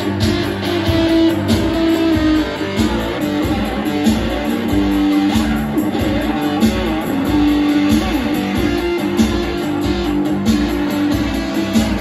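Telecaster-style electric guitar playing an amplified blues instrumental passage with held notes, over a steady repeating low beat.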